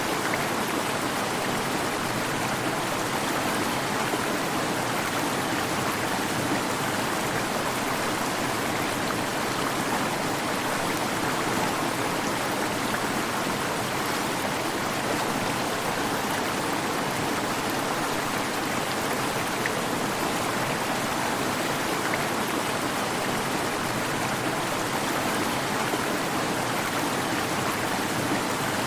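Waterfall: water falling and rushing in a steady, even roar of white-noise-like sound.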